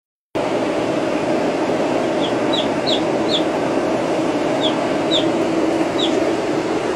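Baby chicks peeping: short, high, falling peeps in small clusters, about seven in all, starting about two seconds in. Under them a steady, loud, noisy hum.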